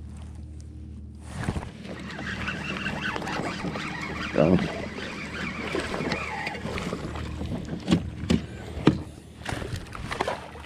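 Spinning reel being cranked to bring in a hooked fish, a dense rattling whir of the reel and line with handling noise. Several sharp knocks come near the end.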